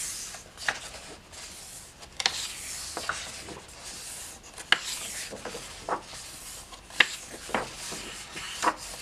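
Thick pages of a hardback coloring book being turned by hand: soft papery rustling and hands sliding over the paper, with a sharp snap each time a page flips over, about eight times.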